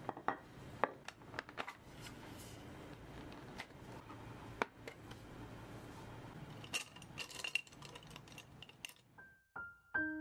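A ceramic tray and watercolour paint palettes being set down and opened on a wooden desk: scattered clicks and clinks, with a quick run of ringing clinks around seven seconds in. Soft piano music comes in near the end.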